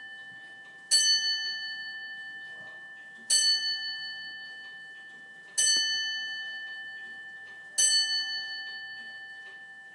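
Old Colchester grandfather clock striking the hour on its bell: four slow, evenly spaced strikes about two and a quarter seconds apart, each ringing on and dying away before the next.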